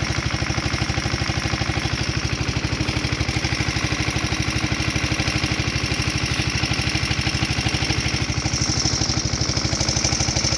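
Boat engine running steadily with an even, rapid chugging beat.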